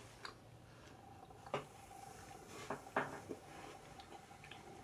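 A few faint, short clicks and taps of small objects being handled, over quiet room tone, with a faint steady hum that starts about a second in.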